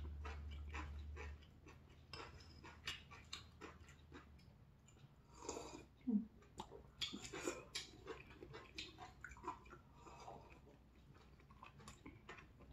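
Quiet eating sounds of two people at a hot pot: soft chewing, small clicks of chopsticks against ceramic bowls, and a sip of broth from a bowl about six seconds in. A low hum stops within the first few seconds.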